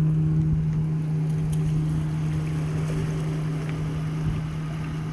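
Pickup truck engine running at a steady low hum as the truck tows an empty boat trailer up the ramp.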